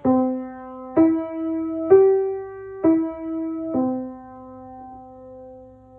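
Piano playing five single notes about a second apart that skip up and back down, C–E–G–E–C played with the left hand, the last C held and fading.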